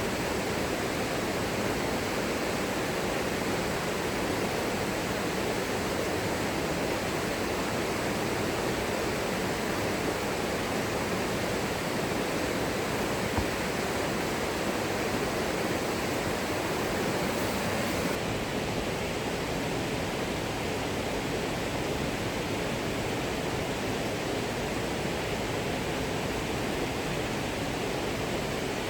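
Steady rush of water from a waterfall, an even hiss with no let-up. One brief click sounds about halfway through.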